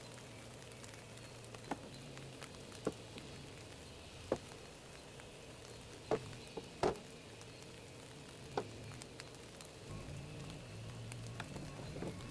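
A few scattered sharp knocks and taps of a wooden drawer being worked on and handled, over a faint low steady hum.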